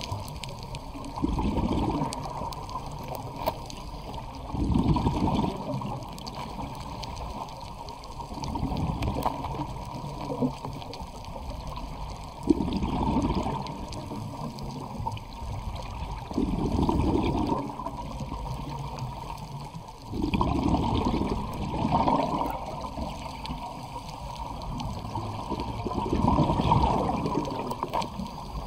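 Scuba diver breathing through a regulator underwater: swells of exhaled bubbles rumble about every four seconds over a steady underwater hiss.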